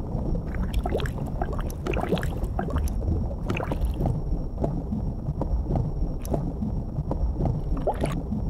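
Underwater bubbling and gurgling sound effect as the bear holds his head under the lake water: many short bubble pops over a steady low rumble.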